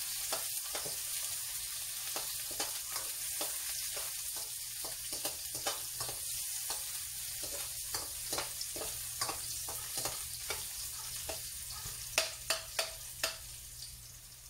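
Ginger, onions and garlic sizzling in oil in a stainless steel wok, stirred with a metal spoon that clicks and scrapes against the pan several times a second. A few louder taps of the spoon come near the end as the sizzle eases.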